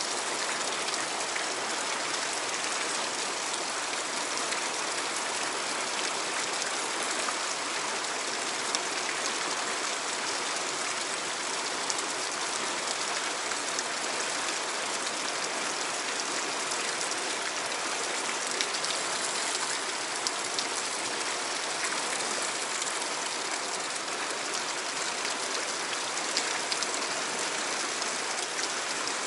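Steady rush of a fast-flowing stream running over rocks.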